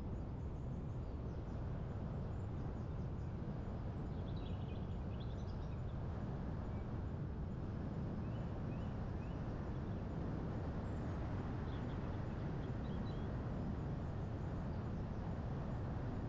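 Steady low wind noise with small birds chirping over it, in two short spells about four and eleven seconds in.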